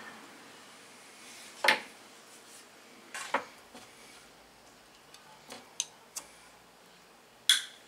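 Metal hand tools, a small screwdriver and a pair of pliers, clinking and knocking against a tabletop while being handled: a handful of scattered sharp clicks, the loudest about one and a half seconds in.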